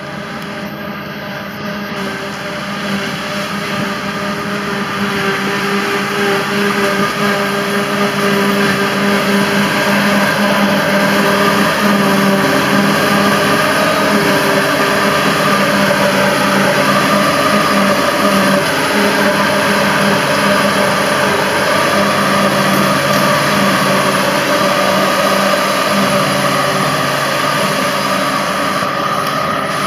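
Claas Jaguar 850 self-propelled forage harvester at work chopping a grass windrow, its engine and chopper running in a steady drone, along with the tractor pulling the trailer beside it. The sound grows louder over the first dozen seconds, then holds steady.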